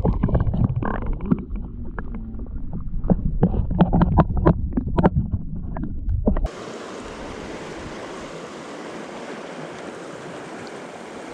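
Close splashing and sharp knocks over a low rumble of wind and handling on the microphone. About six and a half seconds in this cuts off suddenly and gives way to the steady rush of a river.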